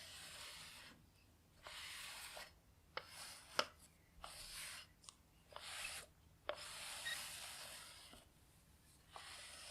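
Sticky-sheet lint roller rolled over a T-shirt in about six strokes, each a rasping sweep, with a few sharp clicks between strokes.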